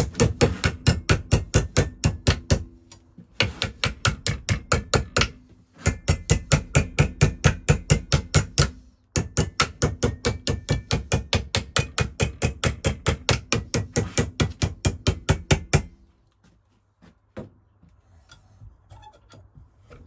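Hammer beating a copper boiler tube plate over a steel former clamped in a vise, forming its flange. Rapid, even blows, about five a second, in four runs with short breaks, with a faint low ring under them. The blows stop about sixteen seconds in.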